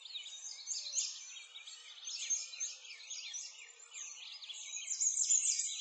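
Many birds chirping and singing at once, a dense chorus of short, quick chirps.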